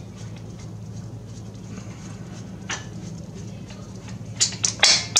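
Metal hand tools clinking against metal at the brake caliper: one sharp clink partway through, then a quick cluster of louder clinks near the end, over a steady low hum.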